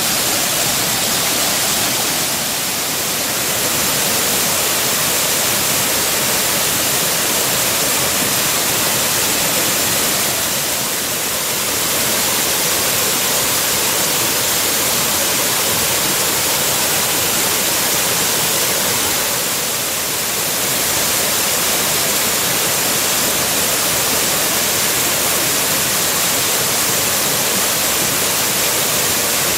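Waterfall running: a loud, steady rush of falling water, easing briefly three times.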